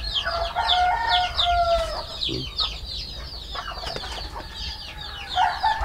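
Chickens in a coop: constant rapid high-pitched peeping, and a hen's long drawn-out call that steps in pitch from about half a second to two seconds in.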